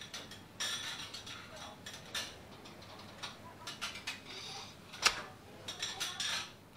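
Light handling sounds at a table: scattered clicks of tableware and brief rustles of clothing, with one sharper click about five seconds in.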